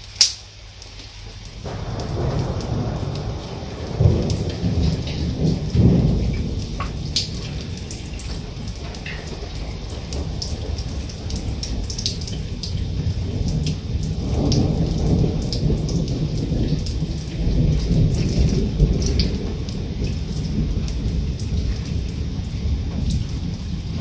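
Thunder rolling over steady rain: a deep rumble builds about two seconds in, peaks twice, then swells again in a long roll midway through, while rain hisses with scattered drops. A brief sharp click sounds at the very start.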